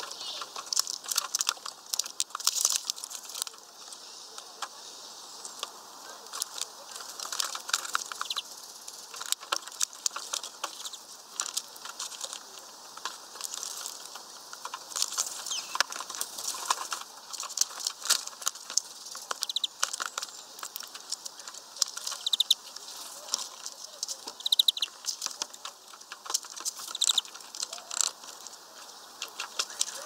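European greenfinches at a mesh bag of peanuts: irregular sharp taps and clicks of pecking, with wing flutters and scrabbling on the wooden perch. There are a few short high chirps in the second half.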